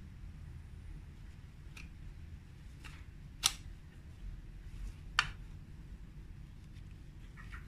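Hand pruning shears snipping through hibiscus roots: a few sharp snips, the two loudest about three and a half and five seconds in.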